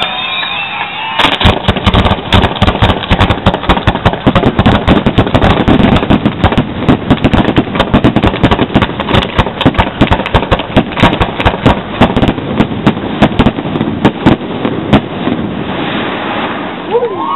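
A rapid barrage of aerial firework shells bursting, many sharp bangs a second with crackle between them. It starts about a second in and thins out near the end.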